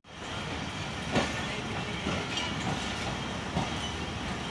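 Passenger train running through a station, heard from inside a coach at an open window: a steady rumble of wheels on the track with a few sharp clicks as the wheels cross rail joints, the loudest about a second in.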